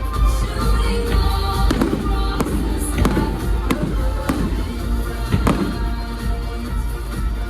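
Fireworks bursting over loud show music: a string of sharp bangs, roughly one every half second to second, starting about two seconds in, over a music track with heavy bass.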